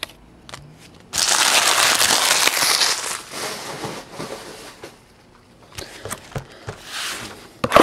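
Plastic trading-card packaging crinkling as it is crumpled by hand: it starts suddenly about a second in, stays loud for about two seconds, then tapers off, with scattered crackles near the end.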